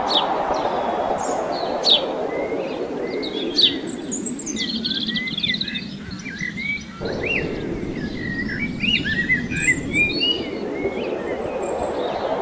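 Many birds chirping and calling in short, overlapping twitters over a steady background noise that dips away briefly about halfway through.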